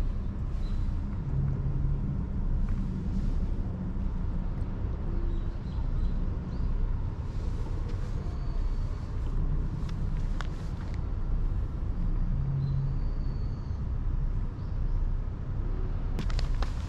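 Steady low outdoor rumble, with a few faint high chirps about halfway through.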